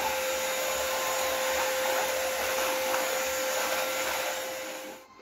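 Vacuum cleaner running steadily with one constant whine as its floor head is pushed over a tiled floor; the sound drops away near the end.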